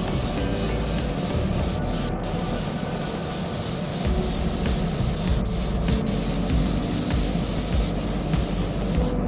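Air spray gun spraying automotive clear coat: a steady hiss of air and atomised paint, briefly let off about two seconds in and again about five and a half seconds in.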